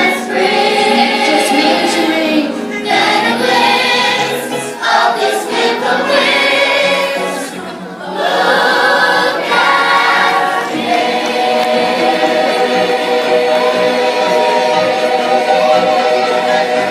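Several voices singing together with accompaniment in a stage-musical number, the phrases ending in a long held chord through the second half.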